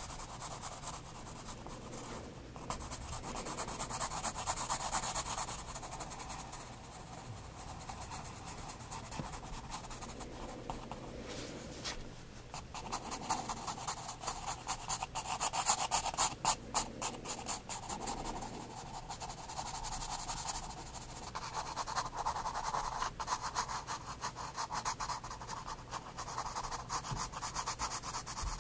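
Soft 9B graphite pencil scratching and rubbing on sketchbook paper in short shading strokes, with a run of fast, close-spaced strokes about halfway through.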